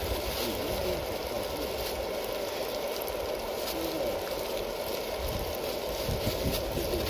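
Tomato, onion and herb curry base in butter bubbling and sizzling steadily in a frying pan over a stove.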